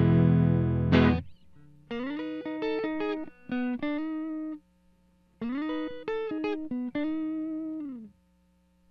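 Clean electric guitar from a Squier Paranormal Offset Telecaster on its Lollar Royal T neck pickup alone, through the amp: a strummed chord rings and is muted about a second in, then the same short phrase of single picked notes is played twice with a brief pause between.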